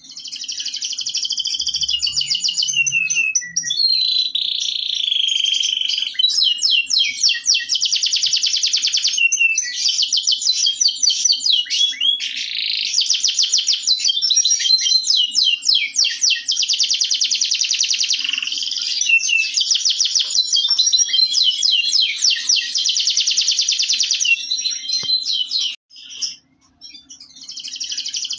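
Domestic canary (Indonesian local canary) singing a long, unbroken song of rapid high trills and rolls, with one brief pause near the end.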